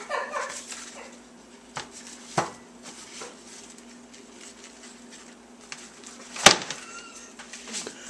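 Microwaved ear of corn shaken by hand to slide the cob out of its husk: dry husk rustling with a few light knocks, then one sharp knock about six and a half seconds in as the cob comes out onto a plastic cutting board.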